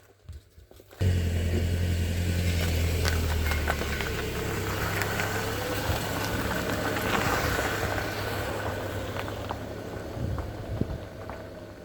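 A car running: the sound starts abruptly about a second in, holds steady with a low hum, and slowly fades near the end.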